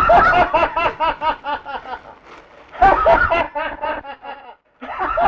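A person laughing in quick runs of repeated pitched syllables: three bouts of laughter, with short breaks about two seconds in and again near the end.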